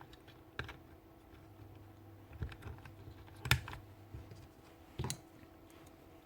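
Light clicks and knocks of plastic and metal parts of a Bosch GEX150AC sander being handled while its new carbon brushes are fitted: four or five separate clicks, the loudest about three and a half seconds in, over a faint steady hum.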